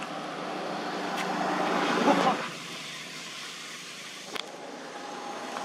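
A motor vehicle's engine getting louder, as if approaching, then cut off abruptly about two and a half seconds in. A quieter steady outdoor background follows, with a faint click about four seconds in.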